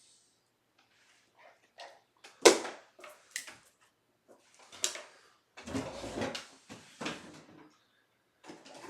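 Handling noise: irregular clicks and knocks as small things are picked up and set down, the loudest knock about two and a half seconds in, followed by rustling and clatter.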